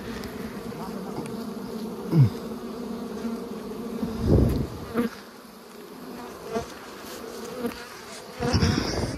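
A swarm of wild honeybees buzzing around a disturbed nest as a steady drone that thins out about halfway through. A single falling buzz passes about two seconds in, and a couple of low rumbling thuds come around four seconds and near the end.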